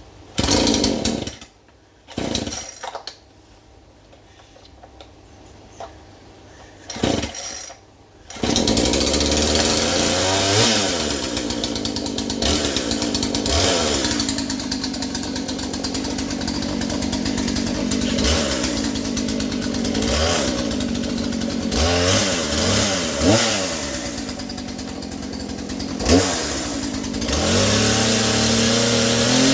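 Two-stroke chainsaw starting: the engine fires in three short bursts that die away, then catches about eight seconds in and runs, its pitch rising and falling repeatedly as it is revved and loaded in a cut. The chain needed sharpening.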